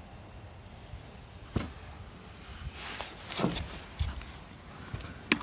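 A few scattered soft knocks and short rustles over a low steady hiss: handling noise from a hand-held camera being moved over the watch box.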